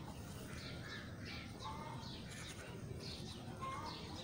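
Birds chirping and calling: short high falling chirps about twice a second, with a lower note every couple of seconds, over a steady low background noise.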